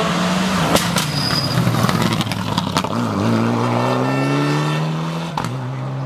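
Rally car engine under hard acceleration. A few sharp cracks come in the first three seconds. The note then dips and climbs steadily for about two seconds, broken by a sharp crack near the end.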